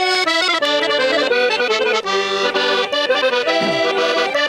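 Instrumental folk music led by an accordion, with many quick note changes.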